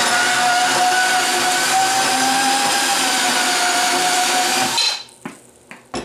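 Portable bandsaw cutting through a galvanized steel pipe nipple, its motor running with a steady whine, until the saw stops near the end, followed by a few light metal clicks.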